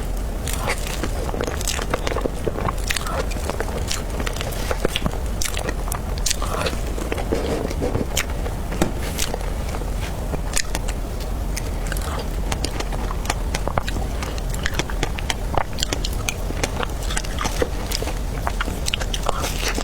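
Close-miked eating sounds of someone chewing dragon fruit cake, with many short, irregular mouth clicks over a steady low hum.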